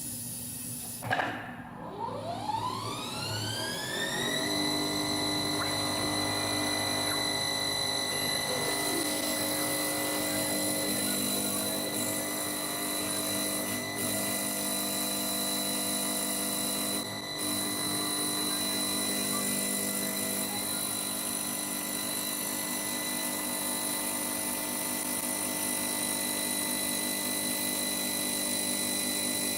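Motor of an auto-feed CNC wood turning lathe starting and spinning up over about three seconds, its pitch rising, then running at speed with a steady high whine.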